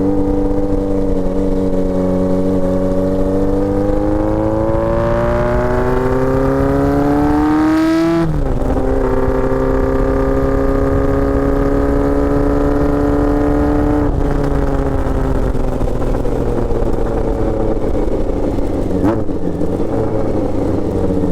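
Honda Nighthawk S motorcycle engine heard through its hand-built custom exhaust while being ridden. The engine note climbs under throttle, drops sharply at a shift about 8 seconds in, and holds steady. Around 14 seconds the throttle comes off and the note falls away as the bike slows, with wind rumble underneath.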